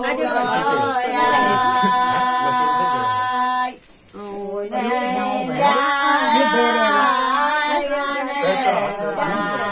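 Voices singing without instrumental accompaniment, holding long sustained notes, with a short break about four seconds in.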